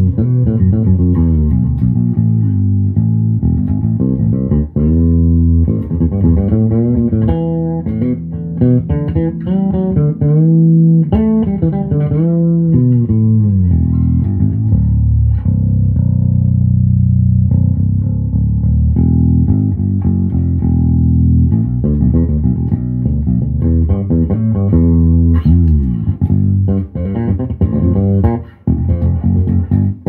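Dingwall Z1 five-string fretless bass played fingerstyle on its FD3 bridge pickup, with a slight treble cut and a slight boost to mids and lows: a run of notes that slide and bend in pitch, the fretless glides clearly heard.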